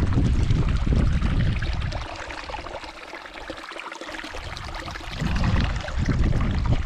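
Gusty wind buffeting the microphone with a heavy low rumble, easing for a few seconds midway and then gusting hard again, over a steady rushing hiss.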